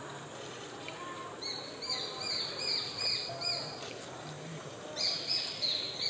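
Juvenile Japanese sparrowhawks calling: short, high, arched notes, about three a second. One run of about seven notes comes a second and a half in, and another run starts about five seconds in.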